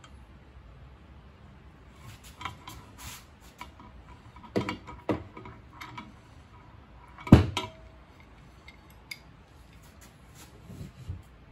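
Steel tools and sockets clinking and knocking at irregular intervals, with one heavier metal knock about seven seconds in: hand work at pushing the swingarm bearings out with a socket used as a press driver.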